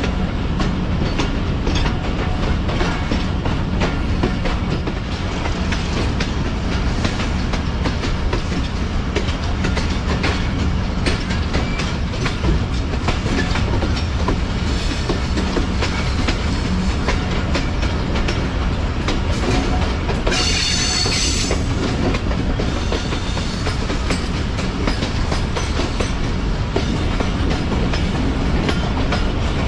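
Passenger train running along the line: a steady rumble with the wheels clicking over the rail joints. About two-thirds of the way through there is a brief high-pitched squeal.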